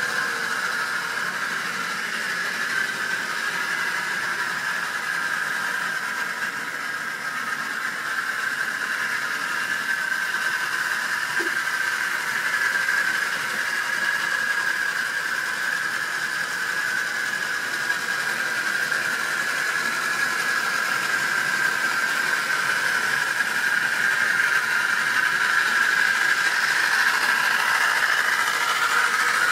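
Model railway train running on the track: the locomotive's small electric motor gives a steady whine over the running noise of the wheels, wavering slightly in pitch and getting a little louder near the end as the locomotive comes close.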